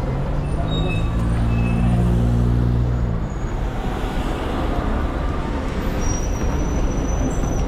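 Loud city street noise with a low, steady engine-like drone for about the first three seconds, then a continuing noisy din.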